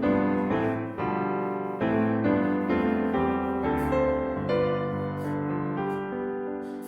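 Background piano music, a slow melody of single notes over held chords.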